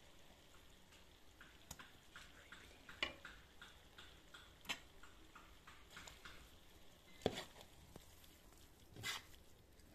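Perforated metal skimmer scraping and knocking against a cast-iron kazan as pilaf rice is stirred, with a faint sizzle underneath. Short clicks come irregularly, with a few louder knocks, the loudest about seven seconds in.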